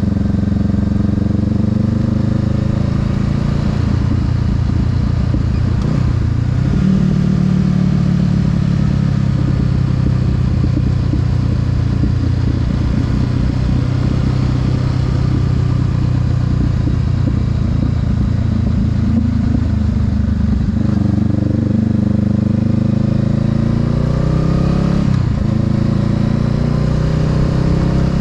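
Honda Rebel 500's parallel-twin engine running under way, its pitch rising and falling with the throttle, with a break about six seconds in and another near the end as it changes speed, over a steady hiss.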